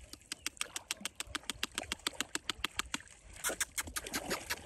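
Small water splashes lapping close by, a quick run of faint sharp clicks about eight a second, with a louder cluster of splashes near the end.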